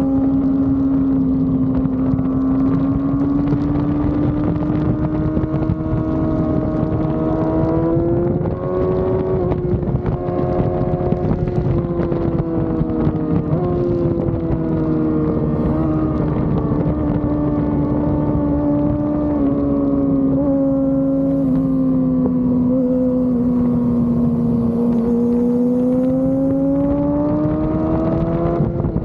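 Yamaha R6 inline-four engine running hard at high revs. The note climbs over the first several seconds, sags slowly through the middle and climbs again near the end. Wind buffets the microphone throughout.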